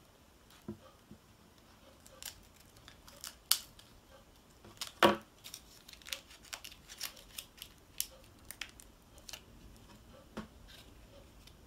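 Hands at work with scissors and small plastic powder packets: scattered snips, clicks and crinkles as a candy-kit packet is cut open and handled, with a sharp knock about five seconds in.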